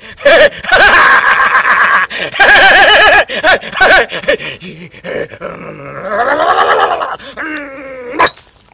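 A person screaming and wailing without words in a series of loud, wavering, groaning cries, ending in a rising wail.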